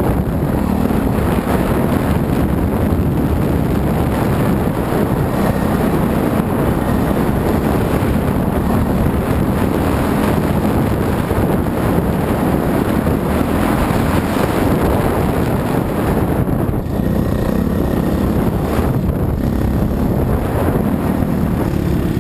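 Dirt bike engine running as the bike is ridden along a dirt trail, with wind buffeting the mounted camera's microphone.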